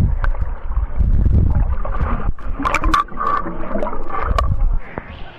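Muffled underwater sound picked up by an uncased Svbony ACT20 action camera held submerged: a heavy low rumble of moving water with gurgles and sharp little clicks. It falls away suddenly near the end.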